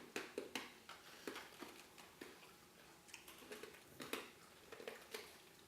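Someone chewing candy: a string of faint, irregular clicks and crunches from the mouth.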